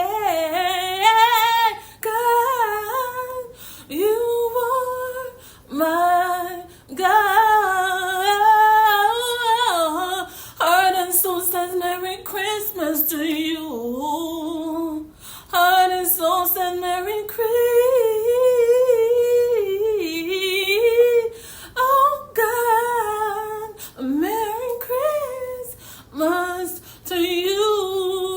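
A woman singing a worship song unaccompanied. One voice holds and bends long, wavering notes, with short breaks between phrases.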